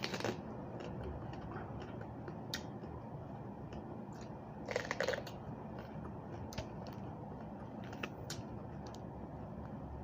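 A person chewing raw vegetables with mouth sounds and a few crisp crunches, the loudest cluster about halfway through, over a steady low room hiss.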